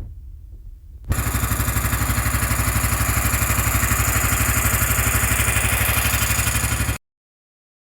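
An engine running steadily with an even, fast pulse. It starts abruptly about a second in and cuts off suddenly near the end.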